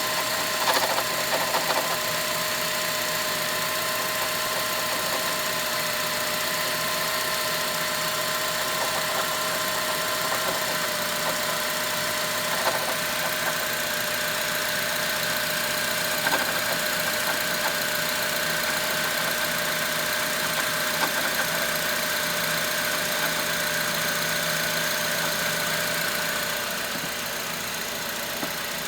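2006 Honda Element's 2.4-litre four-cylinder engine running steadily with a strange noise that the owner suspects may come from the timing chain tensioner. A steady high tone runs over the engine sound with a few faint clicks, and stops about 26 seconds in, when the sound gets slightly quieter.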